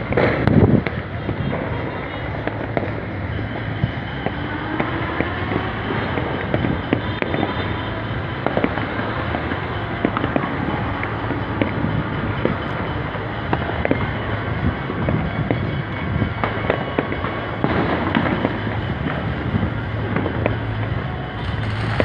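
Fireworks and firecrackers going off, a steady dense crackle of many overlapping pops and bangs that keeps up without a pause.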